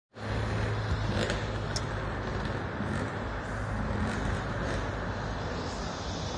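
Steady motor-vehicle noise: an even low drone under a broad hiss, with no revving.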